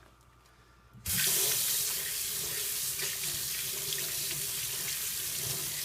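A water tap turned on about a second in and running steadily into a sink, with soapy hands rinsed under the stream.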